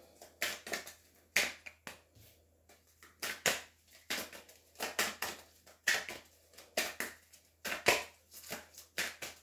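Tarot cards being shuffled and handled by hand, with a card laid on the table: a run of short swishes and slaps, about two a second.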